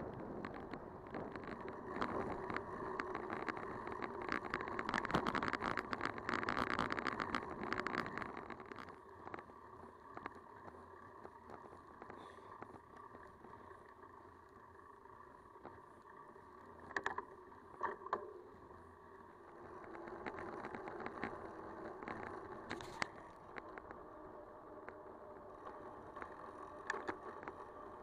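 Bicycle riding along a track: tyre rolling noise and wind with scattered small rattles and clicks. It is louder for the first nine seconds or so, then eases off, with a few sharper knocks later.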